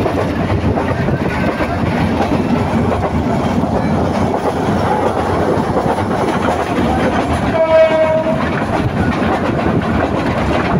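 Passenger train running at speed, heard from a carriage window: a steady rumble of wheels on the track. About three-quarters of the way through, a short train horn sounds for under a second.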